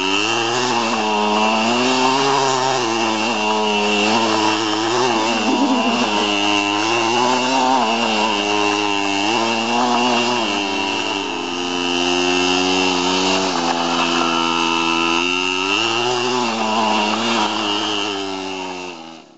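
Small engine of a child's mini motorbike running hard, its revs rising and falling over and over as it is throttled. A steady high-pitched whine runs under the engine note.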